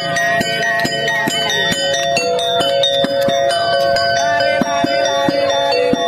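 Music with sharp drum strokes and ringing bell-like metal tones over steady held notes.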